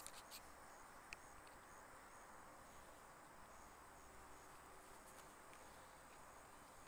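Near silence in a grassy field, with faint insects chirping in short, high-pitched pulses about twice a second. A single faint click about a second in.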